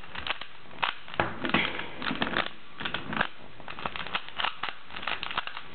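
A plastic megaminx puzzle being twisted by hand: its faces click and clack in quick, irregular runs, several clicks a second, as the R' D' R D corner algorithm is repeated on the last layer.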